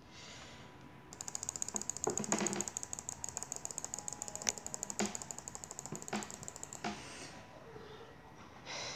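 Laptop touchpad clicked as fast as possible for a clicks-per-second test: a rapid, even run of clicks, about six a second, starting about a second in and stopping about seven seconds in, with a few heavier knocks among them.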